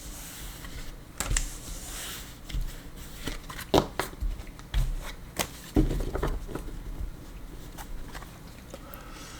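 Tarot cards being handled and shuffled: irregular sharp clicks, short rustles and soft knocks on the table, busiest in the first six or seven seconds.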